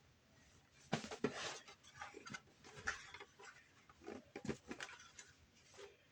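Irregular rustling and soft taps of people shifting about among blankets, pillows and stuffed animals, loudest about a second in.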